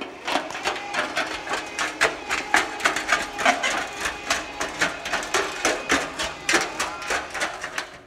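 Heavy water-filled steel crimper roller rolling over gravel behind a small battery-electric two-wheel tractor: a rapid, uneven clatter and crunch of its blades on the stones, several knocks a second, fading near the end as it rolls away.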